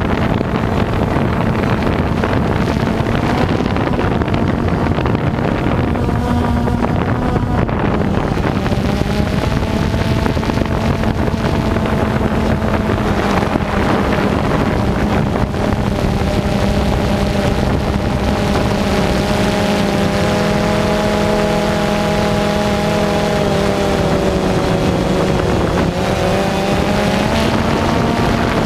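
Motors and propellers of a camera drone humming steadily, with several close tones drifting slightly up and down in pitch.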